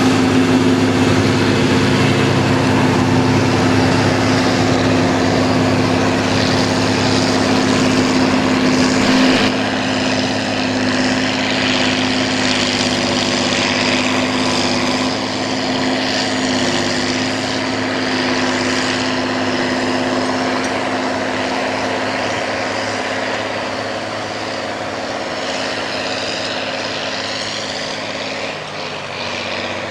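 Diesel engine of a large articulated tractor running steadily under load while pulling a wide seedbed cultivator, with the noise of the implement working the soil. The sound changes abruptly about ten seconds in and is a little quieter after that.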